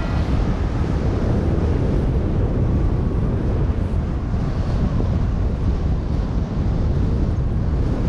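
Steady rush of wind over the microphone of a paraglider pilot's camera in flight, a dense low rumbling buffet.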